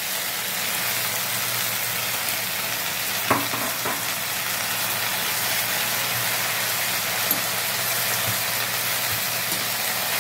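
Fresh gongura (sorrel) leaves sizzling steadily in hot oil in a kadai as a steel ladle stirs them, with one sharp knock about three seconds in.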